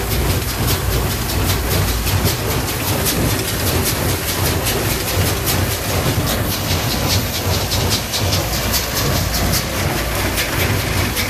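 Sipma Z224 pick-up baler working, its pickup tines lifting straw into the machine, with a fast, regular mechanical clatter over the steady drone of the tractor pulling it.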